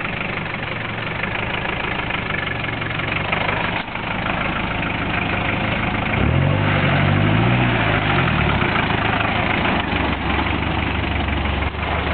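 Off-road 4x4 pickup's engine running at low revs as it crawls down a steep slope, briefly revving up and falling back about halfway through.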